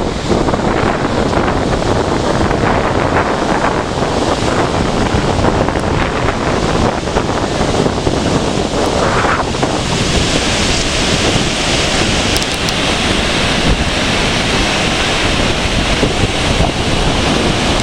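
Rough surf breaking and washing on the shore in a strong wind, with wind buffeting the microphone.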